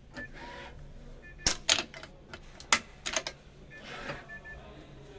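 Sharp clicks and clacks, about half a dozen bunched in the middle, with two short soft rustles, as the strings, frame and clamps of a racket on a badminton stringing machine are handled.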